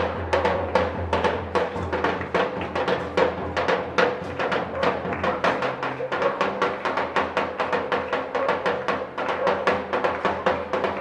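A chinchinero's one-man street percussion: the bass drum on his back and the cymbals on top beaten in a fast, steady rhythm, about four to five strikes a second.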